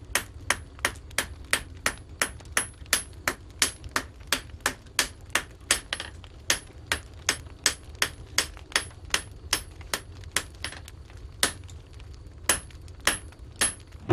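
Hammer blows on metal at a steady pace, about three a second, each with a short bright ring, spacing out in the last few seconds.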